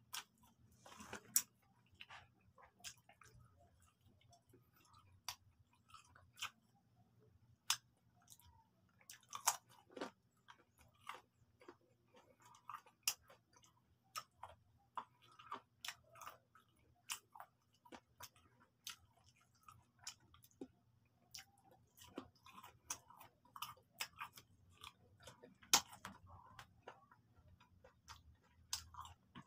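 A person chewing and biting fried chicken, with many short sharp clicks and mouth sounds at irregular intervals.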